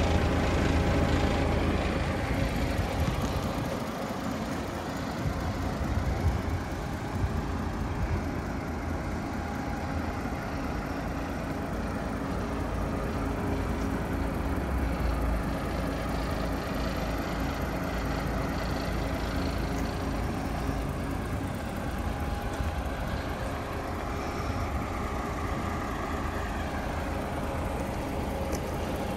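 DAF XF106 tractor unit's Paccar 460 bhp Euro 6 diesel engine idling steadily.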